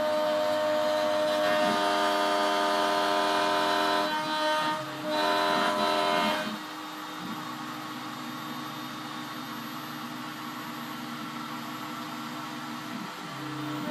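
Spindle of a home-built CNC router running with a steady whine as it cuts, dipping briefly a little after four seconds in. About halfway through it drops to a quieter, steadier running sound, then rises again right at the end.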